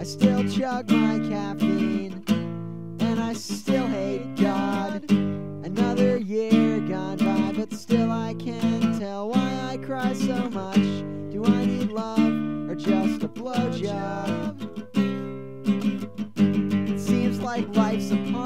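Acoustic guitar strummed in a steady, even rhythm of repeated chords: a lo-fi folk punk demo recording.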